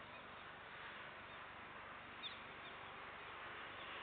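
Faint steady outdoor hiss, with a single short bird chirp a little past halfway.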